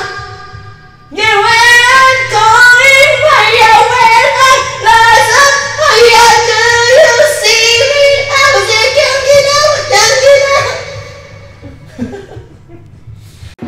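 A man singing loudly and high into a karaoke microphone, the line held and straining, starting about a second in; the voice fades away near the end.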